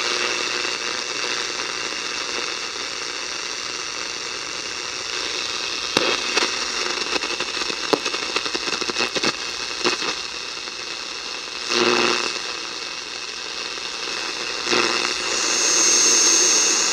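Sanyo Campanetta 7-band radio's speaker giving out steady shortwave static, hiss with scattered crackles and clicks, as it is tuned across the shortwave band. A steady high whistle comes in near the end.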